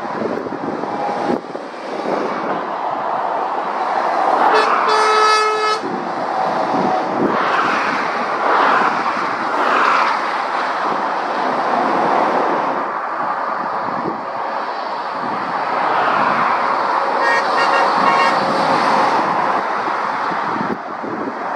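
Lorries and cars passing at speed on a main road, with tyre and engine noise that swells as each vehicle goes by. A vehicle horn sounds for about a second and a half about five seconds in, and a fainter horn toots again near the end.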